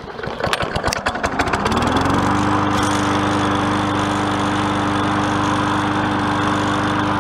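MTD Yard Machines walk-behind mower's small engine being pull-started after three pumps of the primer: it cranks and sputters, catches about two seconds in, rises in speed and settles into a steady run.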